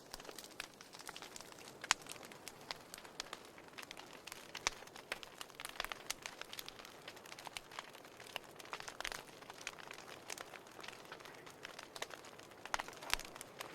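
Wood fire crackling in a fireplace: irregular snaps and pops over a soft hiss, with a few sharper pops about two seconds in and near the end.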